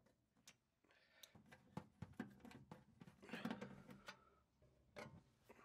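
Near silence with a few faint, scattered clicks and ticks of a screwdriver refitting the screws that hold an oven fan element.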